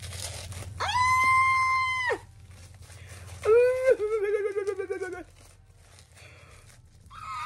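A woman's excited, high-pitched squeal, held for about a second and a half, then after a short pause a lower, quavering squeal of about two seconds.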